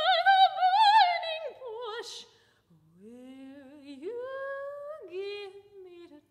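Solo unaccompanied female voice singing in contrasting styles. It opens with a loud operatic note with wide vibrato that slides down, then gives a short hiss. After a brief gap comes a quieter, straight-toned line that starts low, jumps up about four seconds in, and drops again a second later.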